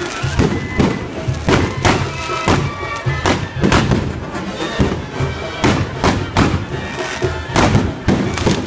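Music playing, with sharp bangs from a burning firework tower (castillo) going off irregularly, about one a second.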